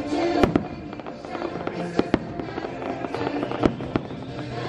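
Aerial fireworks going off in several sharp bangs, two of them in quick succession about two seconds in, over the show's music playing through loudspeakers.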